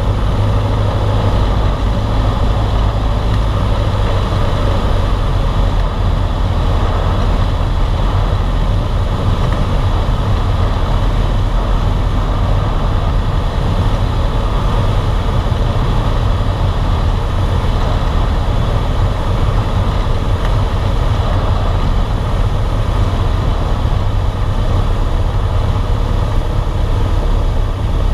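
A light single-engine airplane's piston engine and propeller running steadily, heard inside the cockpit with a deep, even drone and the rush of air over the cabin.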